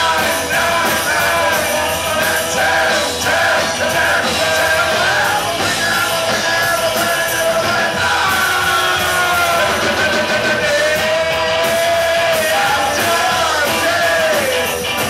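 A live rock band playing, with saxophone, electric guitars and drums, and a lead singer singing.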